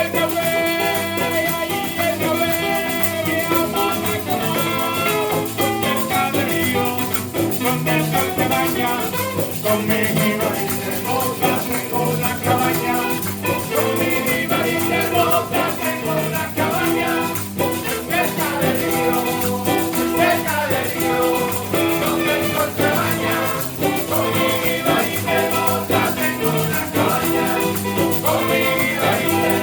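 A Latin American music group playing a song, with singing over the band.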